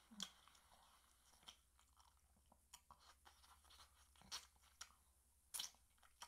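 Faint chewing of fried chicken, with scattered short crunches and mouth clicks as the meat is picked off the bone.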